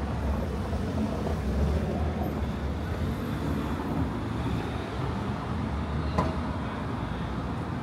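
Street traffic: a steady low rumble of vehicles running, with one sharp click about six seconds in.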